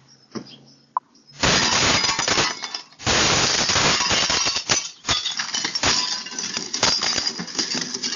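A window being smashed with a hammer: glass breaking and shattering in a loud burst about a second and a half in, then, after a brief pause, more breaking and clinking of glass with sharp knocks.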